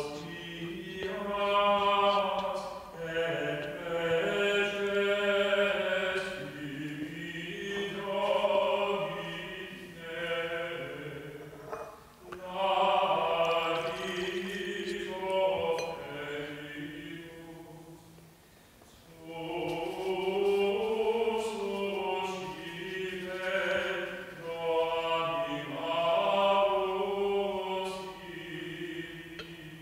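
A single voice singing a slow, unaccompanied melody in long phrases, with short pauses for breath between them.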